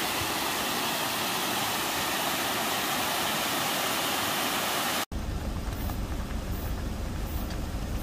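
Steady rush of a mountain stream cascading over stone steps and rocks. About five seconds in it cuts off suddenly and a low rumble with bubbling from a pot of instant ramen at the boil takes over.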